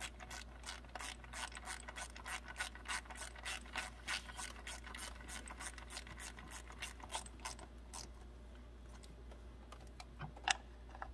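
Hand ratchet wrench clicking rapidly, about five clicks a second, as small bolts are run down and snugged by hand. The clicking slows to a few scattered clicks after about eight seconds, with one sharper click near the end.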